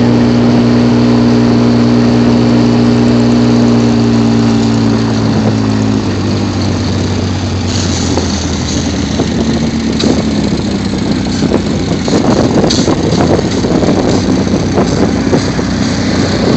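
A vehicle engine running steadily; its pitch drops about six seconds in, and it then sounds rougher, with scattered knocks and hiss over it.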